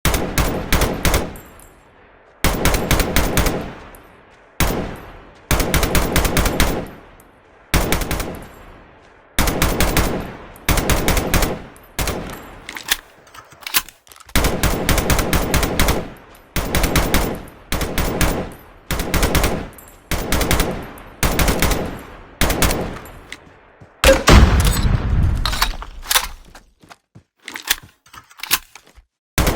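Machine-gun fire sound effect: about twenty short bursts of rapid shots, each trailing off in an echo. About 24 seconds in comes a heavier, deeper burst.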